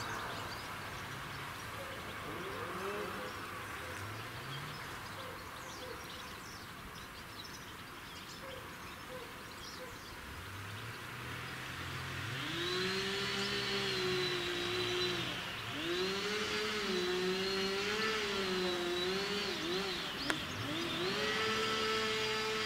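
An engine revving up and down in three long surges, starting about halfway through, over faint steady background noise.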